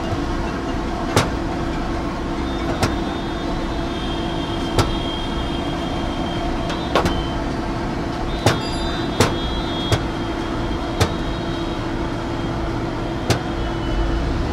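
Wooden rolling pin rolling out dough on a steel counter, with sharp knocks every one to two seconds, over steady street traffic noise and a constant hum.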